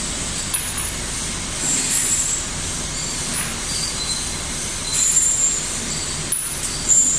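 Steady mechanical background noise with brief high-pitched squeals and a few sharp clicks.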